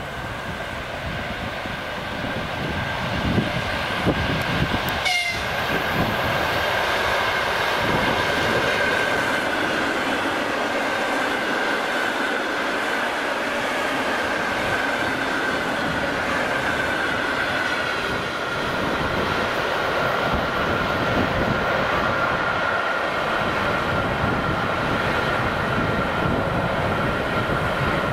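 EP2D DC electric multiple-unit train approaching and running past at speed, its cars clattering over the track, growing louder over the first several seconds and then holding. A steady high whine runs throughout, and there is a brief falling sweep about five seconds in.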